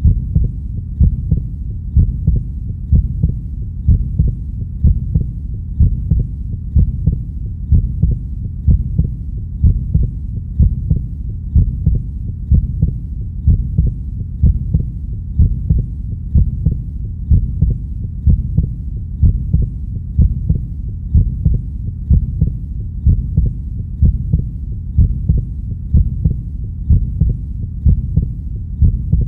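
Heartbeat beating steadily at about one beat a second, each beat deep and low, over a constant low hum.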